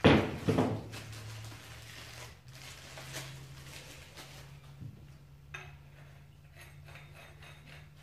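Black steel pipe fittings clanking twice in quick succession as they are picked up from the parts on the table, followed by rustling and a few light metal clicks as the fittings are handled.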